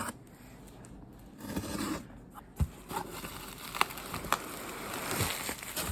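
Packaging being handled and opened by hand: rustling and scraping, with a few sharp clicks and taps in the second half.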